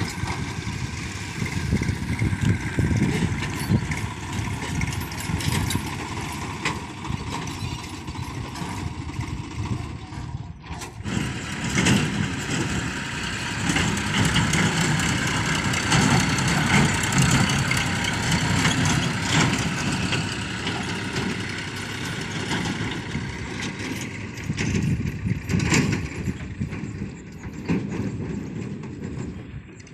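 Diesel engine of a farm tractor running under load as it pulls a loaded trailer, with a brief break about ten seconds in.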